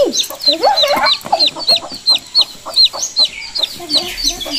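Young chickens peeping: a steady run of short, high, falling cheeps, about four a second, from several chicks at once.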